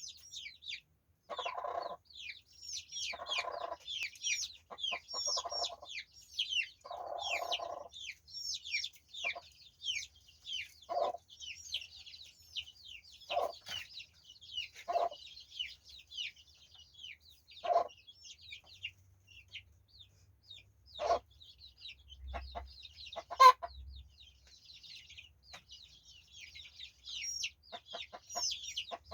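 Chicks peeping continuously in high, falling chirps, while a mother hen clucks in short runs with pauses between them. A single sharp sound about 23 seconds in is louder than the rest.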